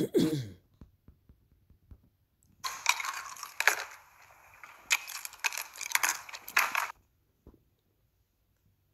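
A crackling, crunching noise close to the microphone, with many sharp crackles, lasting about four seconds and stopping abruptly, after a brief sound at the very start.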